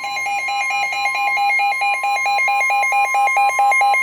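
Midland WR120 weather radio sounding a warning alert: a steady NOAA Weather Radio 1050 Hz alarm tone under a fast pulsing beep that alternates between two pitches, roughly four to five times a second. It marks an incoming severe thunderstorm warning.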